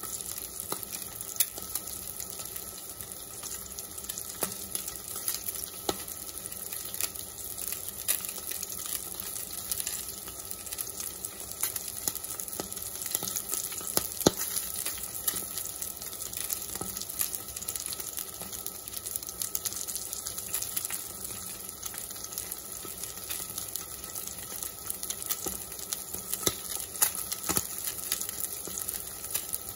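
Salmon fillet sizzling in hot oil in a cast-iron skillet: a steady hiss full of small crackles and spits, with one sharper pop about halfway through.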